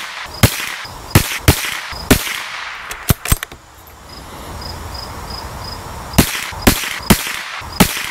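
A string of about ten sharp rifle shots, each with a short echo. Some come less than half a second apart, others a second or so apart, with a pause of a couple of seconds in the middle.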